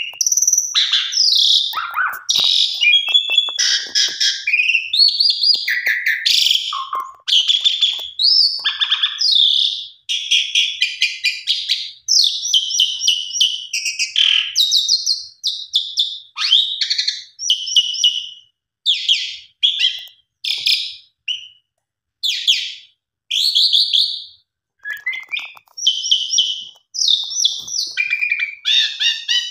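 A pied starling (jalak suren) singing a long, varied song of loud whistles mixed with rapid, buzzy chattering notes. The notes come in short phrases with brief pauses between them.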